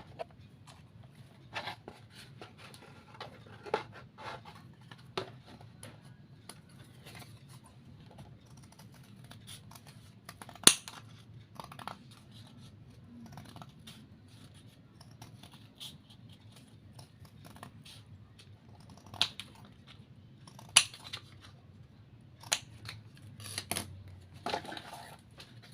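Scissors cutting paper or card for a model, heard as scattered snips and rustles, with a few sharper clicks; the loudest is about eleven seconds in.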